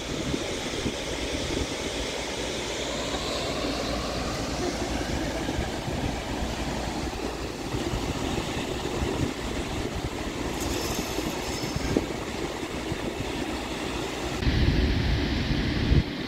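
Steady rush of river water pouring through open dam floodgates, mixed with wind buffeting the microphone; the low wind rumble grows heavier near the end.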